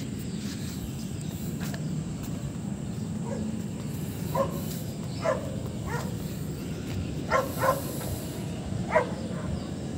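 Steady low wind rumble on the microphone, with a dog barking about six short times from about four seconds in.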